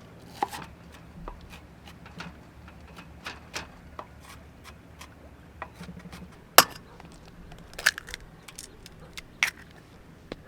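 A series of irregular light clicks and knocks from small hard objects being handled, the loudest about six and a half seconds in.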